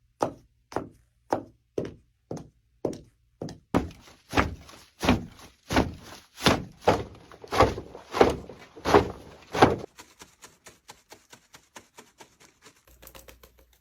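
Foley sound effects made with props: a steady series of thumps about two a second, louder and fuller from about four seconds in, then after about ten seconds a faster run of light ticks.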